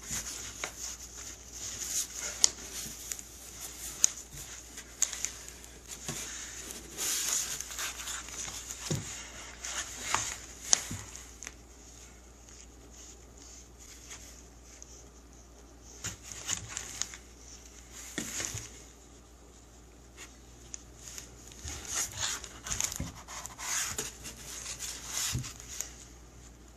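A cat playing in a box: irregular scratching, rustling and sharp little knocks in spurts, with quieter stretches between.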